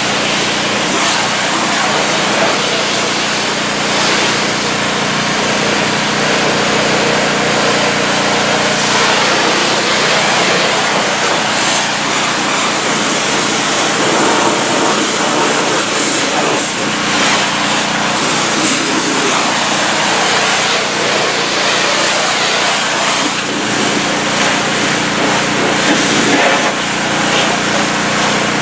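Hot Boss 4000 PSI hot-water pressure washer at work: its carbureted gas engine running steadily under the hiss of the high-pressure water spray striking the side and wheels of a travel trailer.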